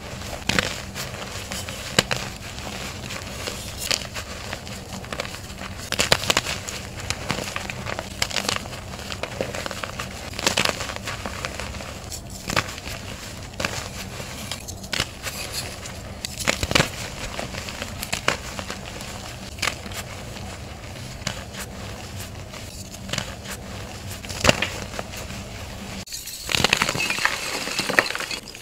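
Hands crushing and crumbling blocks of reformed gym chalk: irregular crisp crunches and crackles over a dry powdery rustle. Near the end there is a short break, then a denser, hissier crunching as softer white powdery chalk is squeezed.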